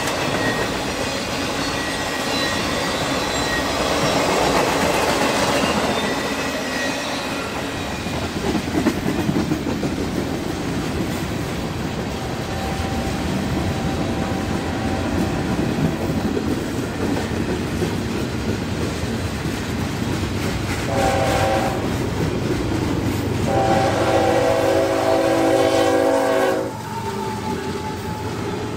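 Circus train rolling past, its cars rumbling and clacking over the rail joints. Near the end a locomotive horn sounds twice, a short blast and then a longer one of about three seconds that cuts off abruptly.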